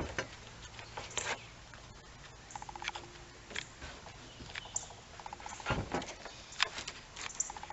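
Light clicks, taps and scratchy handling noises as a hot glue gun and a sneaker are handled, with a few short rapid ticking trills and one louder thump about six seconds in.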